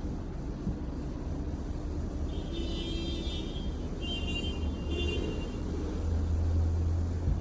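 Low steady rumble, with two short bursts of high chirping tones in the middle.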